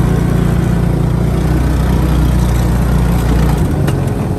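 Small off-road buggy's engine running with a steady low drone, heard from the driver's seat. About three and a half seconds in, the even drone gives way to a rougher, pulsing engine note.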